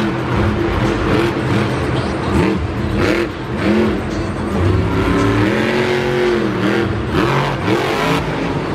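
Monster truck's supercharged V8 revving hard, its pitch climbing and dropping again and again as the driver works the throttle.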